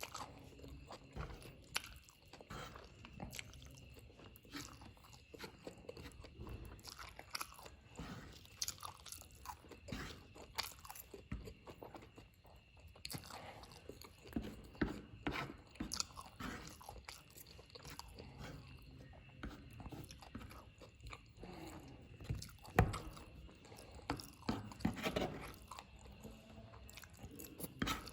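Close-up eating sounds of spicy fried noodles: irregular wet chewing, slurping and smacking clicks, with occasional utensil taps.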